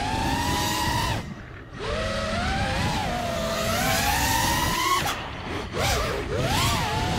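Brushless motors and propellers of a 4S 5-inch FPV freestyle quadcopter, recorded on its onboard camera: a whine that rises and falls in pitch with the throttle. It nearly drops away about a second and a half in, climbs steadily again, and wavers quickly up and down near the end.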